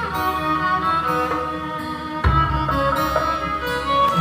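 Music with bowed strings playing over a car's audio system in its cinema sound mode. A heavier bass comes in about two seconds in.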